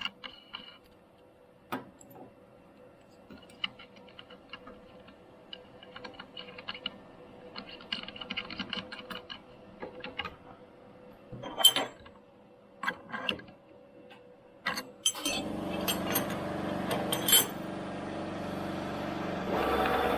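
Scattered light clicks and clinks of metal over a faint steady hum. About fifteen seconds in, a machine motor starts up and keeps running steadily, clearly louder.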